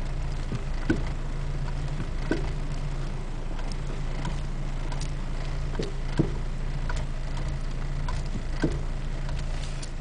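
Front driver-side suspension of an Acura RSX Type-S clunking, a short dull knock every one to three seconds, heard from inside the cabin over a steady engine hum. The clunk is the suspension fault being demonstrated.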